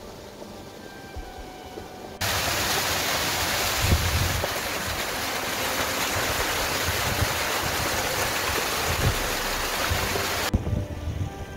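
Small mountain stream cascading down rocks, a loud, steady rush of water. It starts abruptly about two seconds in and cuts off just as suddenly shortly before the end.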